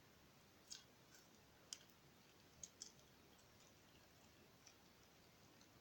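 Clear glue slime being squeezed and played with by hand, giving a few faint, sharp clicks and pops at irregular intervals over near silence.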